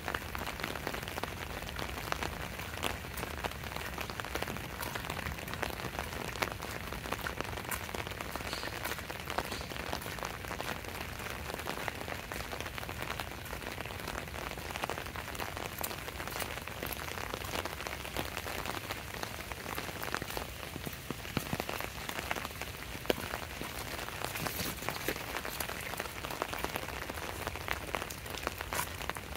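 Steady rain falling, a continuous hiss dense with small drop hits.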